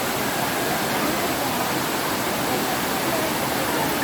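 Waterfall crashing down, a steady even rush of falling water, with faint voices of people in the background.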